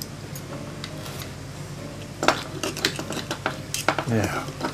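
Small metallic clicks and taps from tools and small parts being handled on a clock radio's chassis, coming in a quick cluster in the second half, over a steady low hum.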